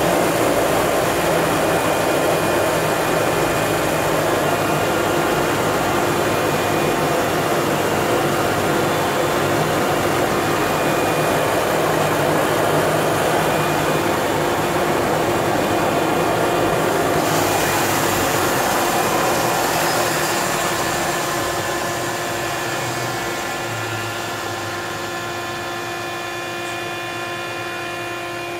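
Turbine Otter's GE H80 turboprop engine running steadily, a rush of noise with a steady whine, heard from inside the cockpit. It gradually gets quieter over the last several seconds.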